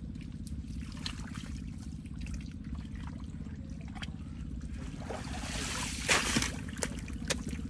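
Muddy water trickling and sloshing as someone wades and gropes for fish in a drained pond bed, over a steady low hum. A louder splashy scrape of mud and water comes about five and a half seconds in, with a few small clicks and knocks.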